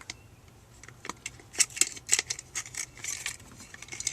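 Irregular light clicks and clinks of hard parts being handled as a replacement car door speaker and its adapter hardware are offered up into the door for fitting. The sharpest knocks come a little past the middle.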